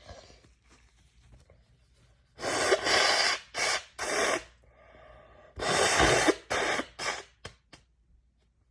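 A woman blowing her nose hard, in two bouts a few seconds apart. Each bout is a long forceful blast followed by two or three shorter ones.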